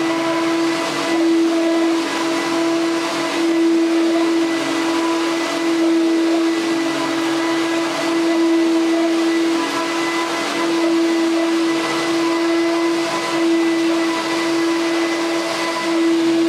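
Bagless upright cyclonic vacuum cleaner running steadily: a constant motor whine over rushing air, swelling and easing slightly in loudness.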